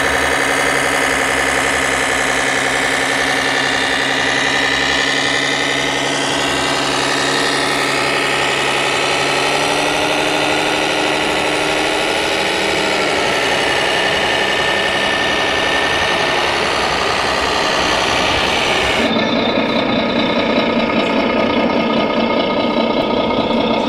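Diesel big-rig engine sound from a scale RC semi-truck's onboard sound module, idling steadily with a slight rise and fall in revs. About 19 seconds in, it cuts abruptly to a different truck's engine sound.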